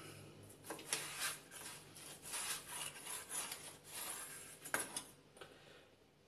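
Broad kitchen cleaver slicing raw pork belly into strips on a wooden cutting board: quiet sawing strokes through the meat and rind, with light knocks of the blade on the board and a sharper knock just before five seconds in. The strokes die away near the end.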